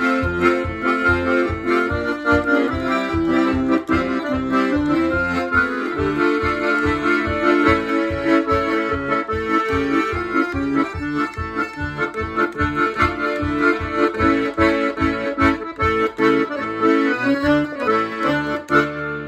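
Scandalli piano accordion playing a Ukrainian kolomeyka: a lively melody on the right-hand keyboard over a steady, evenly pulsing bass from the left-hand buttons.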